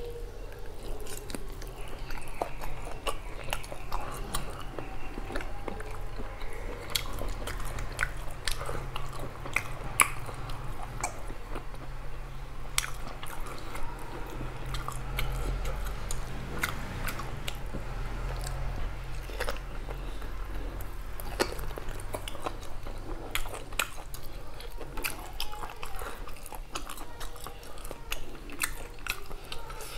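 Close-up chewing and wet mouth sounds of a person eating beef curry and rice by hand, with many irregular sharp smacks and clicks, one louder about ten seconds in. A steady low hum runs underneath.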